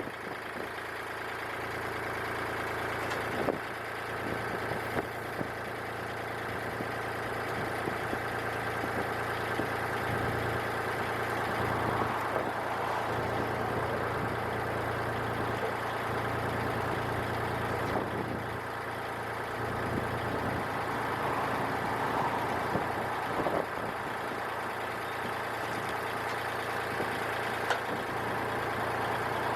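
Portable band sawmill's gasoline engine running steadily, with a few brief knocks.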